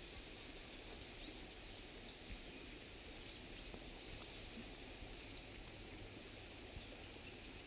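Faint background noise: a low, even hiss with a thin, high steady whine that comes and goes, and a few faint ticks.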